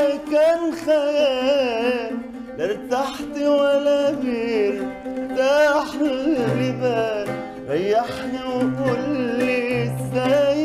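A man singing an ornamented, wavering Arabic melody to his own oud accompaniment.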